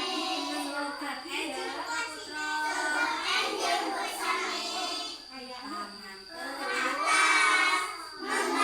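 Children's voices singing together, mixed with some children's talking, with a brief lull in the middle and the singing louder again near the end.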